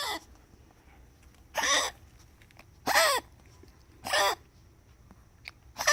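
A run of short coughs, one about every second and a quarter, each a brief pitched sound that drops in pitch.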